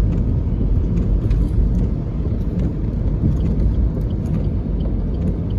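Strong typhoon wind buffeting the microphone: a dense, steady low rumble.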